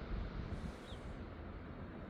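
Steady seaside outdoor ambience: a continuous low rumbling noise with no distinct events, and one short high bird chirp about a second in.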